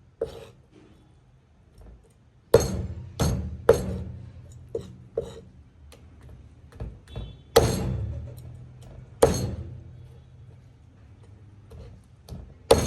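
A series of heavy knocks on a hard surface, about seven loud ones at uneven intervals with smaller taps between, each ringing out and fading over about a second.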